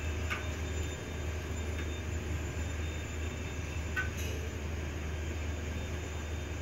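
A steady low rumble with a couple of faint clinks.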